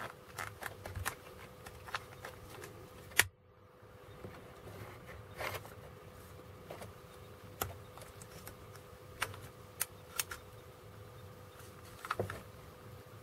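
Small plastic clicks and knocks as the parts of a desoldering gun are handled and fitted together: the clear solder chamber with its spring and the black end cap. One sharp click about three seconds in is the loudest, and a faint steady hum runs underneath.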